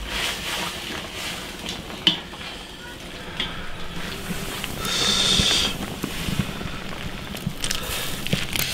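Large wok of water at a rolling boil, with scattered knocks and clicks of utensils as greens are stirred in, and a louder hiss lasting about a second about five seconds in.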